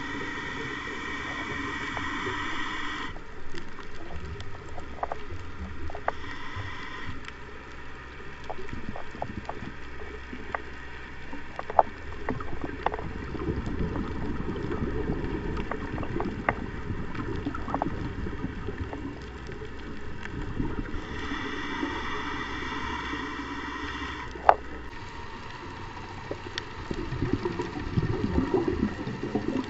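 A scuba diver's regulator breathing underwater: hissing inhalations at the start, briefly around six seconds in and again about twenty-one seconds in, with a bubbling, rumbling exhaust between them. Scattered sharp clicks run through it.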